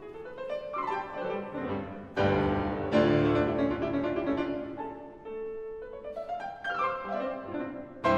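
Background instrumental music led by piano, with quick rising runs of notes.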